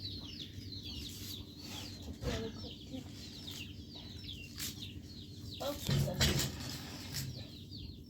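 Chickens cheeping: many short, high, falling chirps one after another, with a few knocks and a louder clatter about six seconds in.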